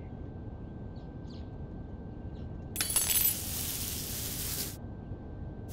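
A low hum, then about three seconds in a sudden burst of hiss with high, glassy ringing in it that lasts about two seconds and cuts off.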